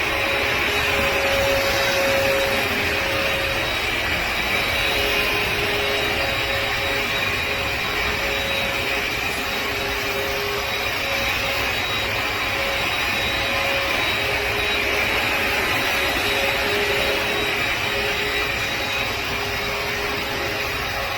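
Suction motor of a floor-cleaning machine running steadily, a constant rush of air with a thin whine over it.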